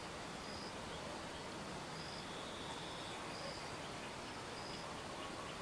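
Garden ambience: a steady background hiss with faint, short high-pitched chirps from insects or birds repeating about once a second, and one longer high note near the middle.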